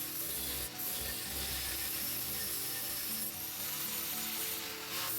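Steady abrasive rubbing on metal as the machine's parts are cleaned up, with background music underneath.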